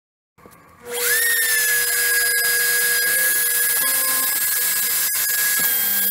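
CNC router spindle motor spinning up with a quickly rising whine about a second in, then running at a steady high whine, with a few sharp clicks.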